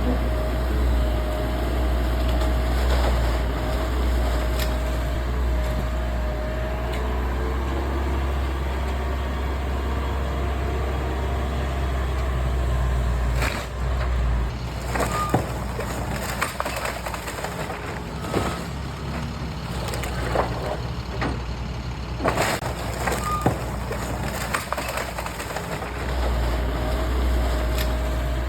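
Excavator diesel engine running with a steady low drone and, at the start and end, a held whine. From about halfway through, a run of sharp cracks and crashes as the Scorpion S1600 grab breaks up the house.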